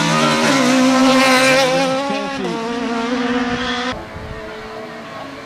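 Toyota 1600 cc rally car engine revving hard at high rpm as the car drives past, dropping in pitch about two and a half seconds in as the driver shifts or lifts. At about four seconds it gives way abruptly to a fainter, more distant engine note.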